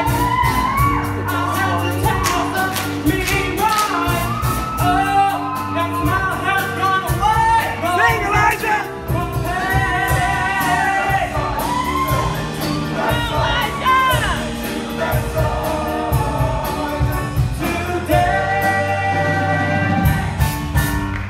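Show choir singing with a band accompaniment: a steady bass line and a regular drum beat under the voices. The music stops sharply at the very end.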